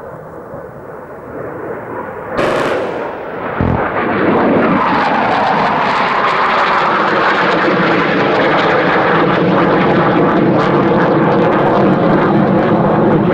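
Panavia Tornado jet passing low overhead: its engine roar builds, then holds loud and steady with a slowly falling pitch. About two seconds in there is a short sharp burst, and a second later a low thud.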